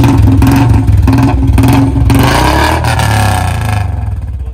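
Royal Enfield Classic 350's single-cylinder engine revved loud through a C-bend pipe and long Punjab silencer, the revs rising and falling, then dropping back to a thumping idle near the end.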